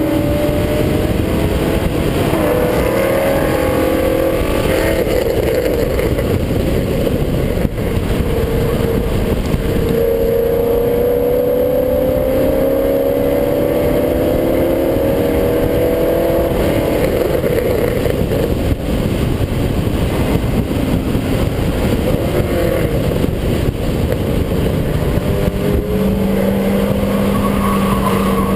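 Race car's engine pulling hard on track, its note climbing steadily and dropping back at each upshift, then settling to a steadier lower note near the end as it lifts for a corner. Heavy wind noise buffets the microphone throughout.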